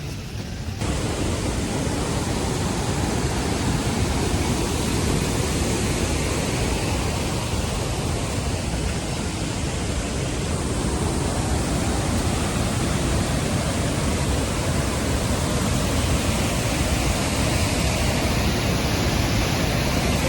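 Steady loud rush of a large waterfall's falling water, cutting in abruptly about a second in.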